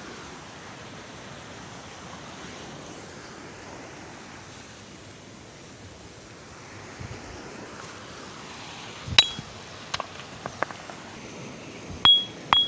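Steady hiss of background noise, then from about nine seconds in a stone vase is struck several times with sharp clicks. The last two strikes ring with a clear high ping.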